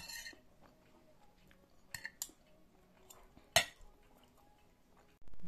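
Metal cutlery clinking and scraping against a plate: a few sharp clinks, the loudest about three and a half seconds in. A brief low thump near the end.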